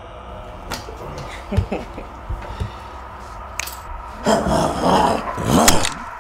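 A few scattered knocks and scuffles, then loud, rough growling and snarling in two long bursts near the end, over a faint steady drone.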